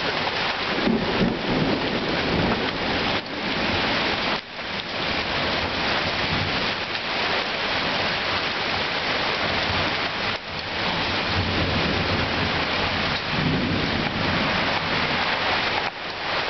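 Heavy downpour in a severe thunderstorm: a steady, loud hiss of rain on the ground and trees, with low rolls of thunder about a second in and again near the end.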